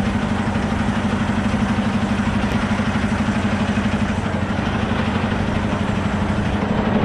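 Semi truck's diesel engine idling, a steady hum with a fast, even pulsing throb.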